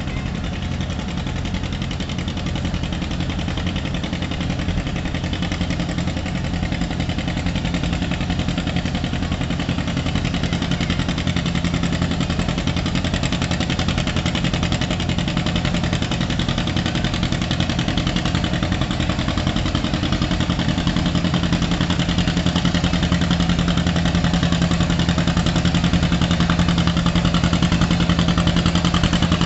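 John Deere 720's two-cylinder engine pulling a weight-transfer sled under load, its exhaust beating steadily and growing louder as the tractor comes closer.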